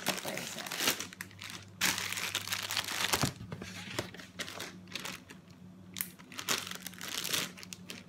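Clear plastic food bags holding boiled okra crinkling in irregular bursts as they are handled and filled, over a faint steady low hum.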